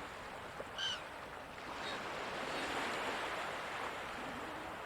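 Ocean surf washing steadily, with a short gull call about a second in and a fainter one just before two seconds.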